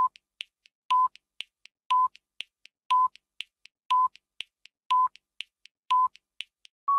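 Countdown timer sound effect: a short electronic beep every second, with quick ticks in between. A longer, slightly higher beep comes at the very end as the timer runs out.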